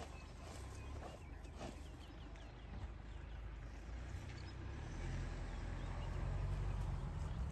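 A leopard's hind feet scraping dry, dusty soil in a few short scuffs in the first two seconds, with faint bird chirps. A low engine rumble from an idling vehicle grows louder from about five seconds in and is the loudest sound by the end.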